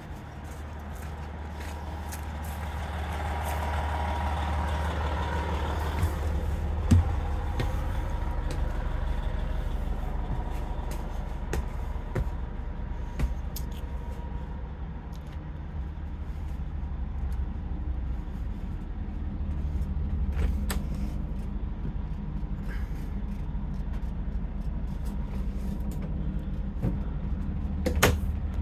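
An engine humming steadily and low, with a sharp knock about seven seconds in and another near the end, and footsteps.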